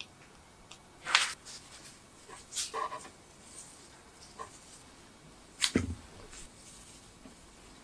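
Gloved hands working soft glutinous-rice (mochi) dough and piped filling: a few short squelches and rustles, with a dull thump a little over halfway through.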